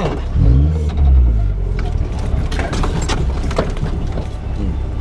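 Off-road 4x4 engine revving up hard about half a second in, then running under load, with scattered knocks and clatters from the vehicle working over rough ground.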